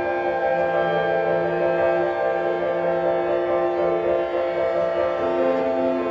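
Instrumental ensemble holding a dense, sustained chord of many steady notes. A lower note joins about half a second in and drops out about four and a half seconds in.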